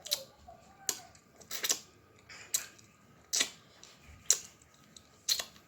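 Close-miked eating sounds from someone eating chicken wings: a sharp wet click or lip smack a little under once a second, seven in all, with a brief faint hum near the start.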